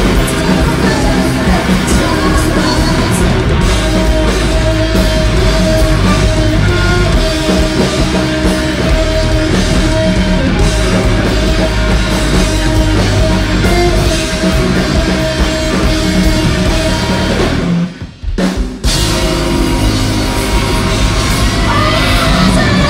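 Live rock band playing loud, with distorted electric guitar and drum kit. About eighteen seconds in the band stops dead for about a second, then crashes back in.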